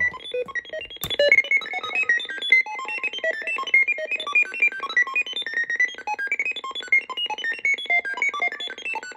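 A DIY Arduino-style random tone generator beeping out a rapid stream of short electronic tones at random pitches, several a second, in the manner of a retro film computer. The tones run through a reverb unit, and there is a sharp click about a second in as the reverb is switched on.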